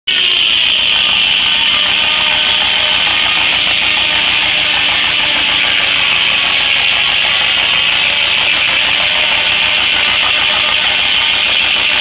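A 52-inch circular sawmill blade ripping steadily through a walnut log with a loud, high, hissing whine. Underneath runs a low, fast, even pulsing from the engine of the John Deere tractor belted to the mill.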